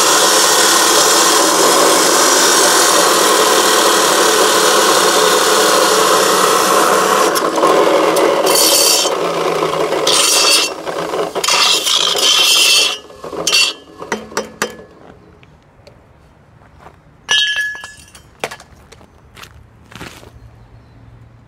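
Abrasive chop saw cutting through steel tubing, a steady loud grinding that turns into uneven bursts of grinding and stops about thirteen seconds in. After that come scattered knocks and clinks, with one short louder grind or scrape near the end.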